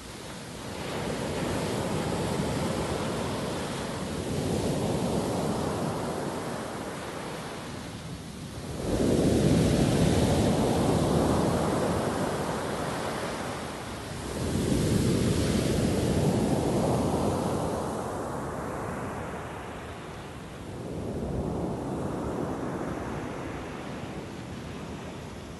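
Mediterranean surf breaking on a pebble beach: five waves surge in one after another, about every five seconds, each swell of rushing water fading to a hiss before the next, the biggest about nine seconds in.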